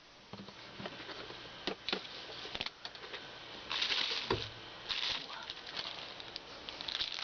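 Packaging being handled: short rustles and light clicks, with a soft thump a little over four seconds in.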